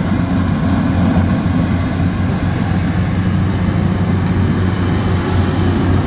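Yanmar AW70 rice combine harvester running while it harvests, its diesel engine making a loud, steady drone.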